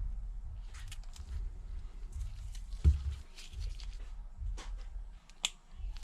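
Small clicks and taps of tools and tape being handled on a work surface during tape application around a screen's home button bracket. A dull knock comes about three seconds in and a sharp tick near the end, over a low steady hum.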